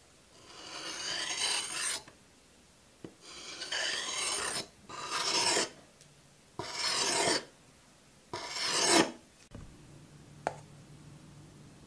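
Cleaver's steel blade scraping along a sharpening stone: five rasping sharpening strokes, each about a second long with short gaps between them, then they stop.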